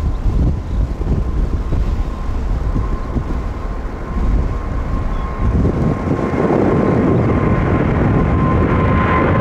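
Departing Boeing 777-300ER's GE90 jet engines, heard as a steady distant whine under wind gusting on the microphone. About halfway through, the jet roar swells and holds louder.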